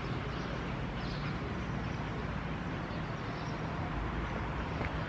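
Steady outdoor city background noise: a low, even hum of distant traffic.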